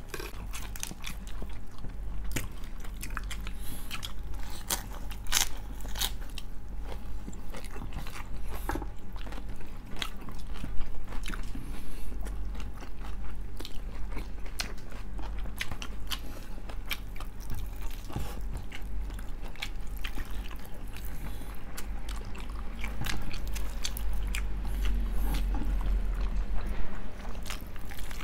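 Close-miked eating: a person biting and chewing food, with frequent sharp crunches, over a steady low hum.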